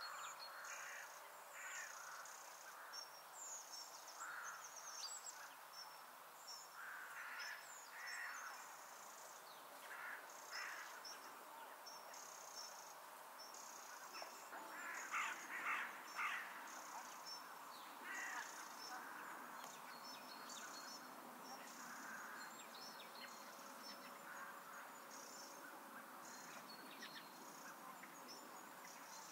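Faint open-countryside ambience: insects chirping steadily in a high, repeating pattern, with scattered bird calls over it, loudest in a short run of calls about halfway through.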